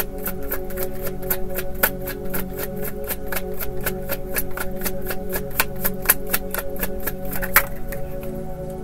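A tarot deck shuffled hand to hand, the cards clicking in a quick, even run of about five a second that stops shortly before the end. Soft background music with steady held tones plays underneath.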